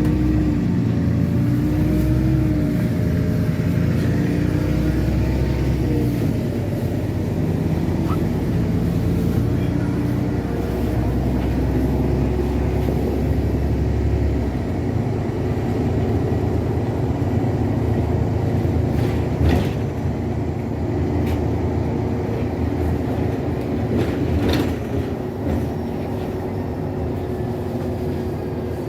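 LiAZ-6213.65 articulated city bus riding, heard from the passenger cabin: the engine and drivetrain run with a rising and falling pitch in the first few seconds, then more steadily, over a low road rumble. A couple of sharp knocks, one about two-thirds through and another a few seconds later.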